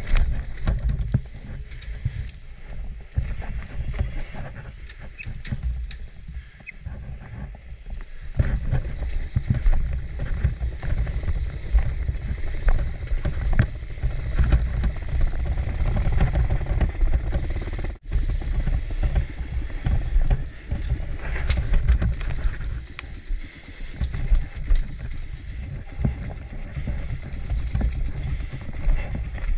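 Wind buffeting the microphone: a loud, low rumble that gusts up and down irregularly.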